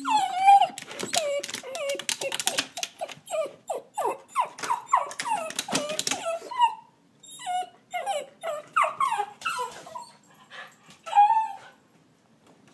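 Schneagle (schnauzer-beagle cross) dog whining in a long run of short, high cries, each falling in pitch, about two or three a second, with a short pause a little past halfway. The whining is the dog's agitation at seeing a cat outside.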